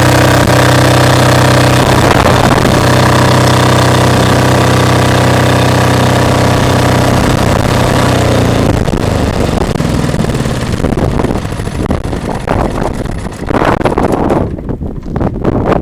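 Enclosed 6000-watt diesel generator running on biodiesel, a steady engine hum, then winding down and falling silent about nine seconds in. Gusts of wind on the microphone follow.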